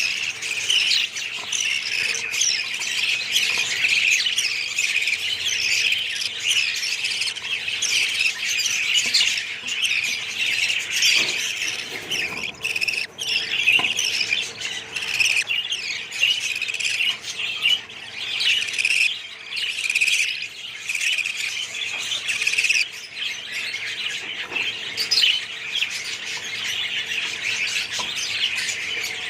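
A colony of budgerigars chattering continuously, many birds chirping and squawking over one another.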